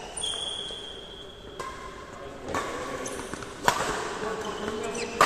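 Badminton rackets striking a shuttlecock in a rally: a few sharp hits a second or so apart, the loudest nearly four seconds in.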